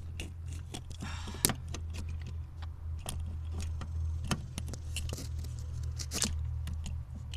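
Handling noise of a camera holder being fitted and moved: irregular clicks, rattles and knocks, the sharpest about one and a half seconds in and again past four seconds. Under it, the steady low hum of an air compressor running.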